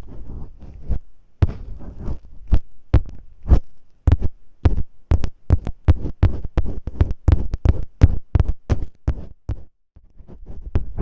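Masking tape worked right against the microphone. Close scratchy rustling gives way about a second in to a long run of sharp sticky pops and taps, about three or four a second. The rustling returns near the end.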